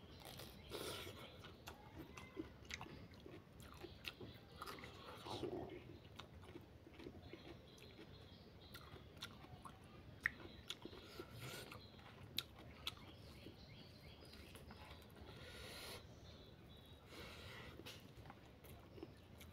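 Faint close-up chewing of a mouthful of rice, egg curry and cucumber, with scattered small clicks.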